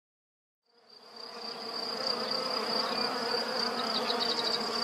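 Honeybees buzzing around their hive: a dense, steady hum of many wingbeats that fades in about a second in.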